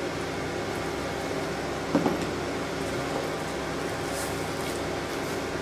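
Steady machine hum with several fixed tones. A short sound comes about two seconds in, and there is light rustling of plastic wrapping around four seconds in.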